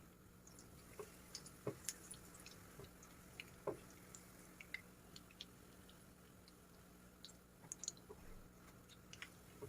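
Faint, scattered small clicks and a few soft taps from kitchen handling, over a quiet room background.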